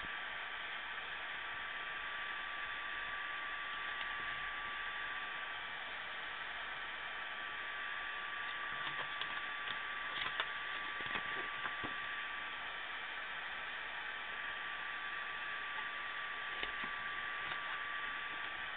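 Steady electronic hiss with a constant thin whine: the recording's own noise floor. A few faint ticks and rustles about halfway through and again near the end, from the pages of a CD booklet being handled.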